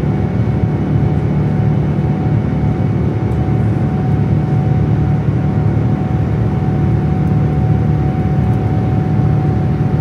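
Cabin noise of a Boeing 787-9 climbing out after takeoff, heard from a window seat beside its Rolls-Royce Trent 1000 turbofan: a loud, steady, deep rumble with a thin steady whine over it.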